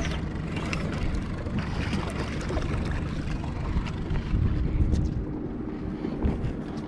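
Boat motor running steadily at trolling speed, with wind buffeting the microphone and water against the hull. A few thumps come about four to five seconds in.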